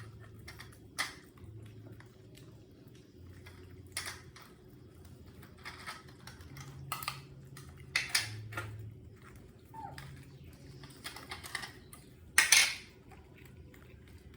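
Scattered light clicks and clatters of small hard objects being handled, with the loudest cluster about twelve and a half seconds in.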